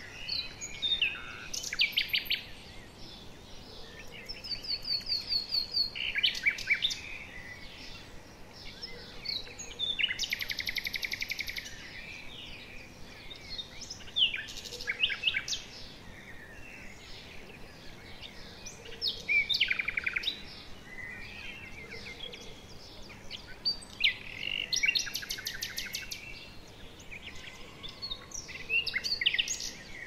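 Several wild birds calling and singing in short bouts every few seconds, with whistled notes and fast chattering trills, over a faint steady background hiss.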